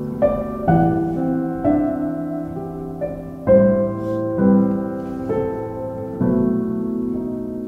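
Background music: a slow, gentle piano piece, a note or chord struck roughly once a second and left to ring and fade.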